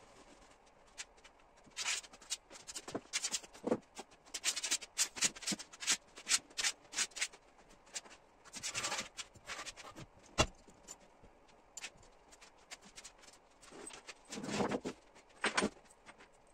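Handling noise from reupholstery work: rustling and scraping of leather and fabric upholstery being handled, with irregular clicks and taps and one sharp knock about ten seconds in.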